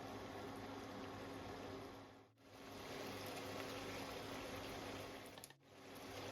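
Mutton cooking in oil in a karahi, a steady bubbling sizzle with a low steady hum beneath. The sound drops out briefly twice, about two seconds apart, at edits.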